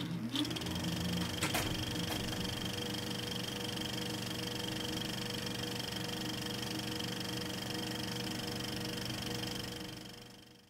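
Film projector running, a steady mechanical whir with a low hum and a thin high tone. There is a brief clatter about a second and a half in, and the sound fades out near the end.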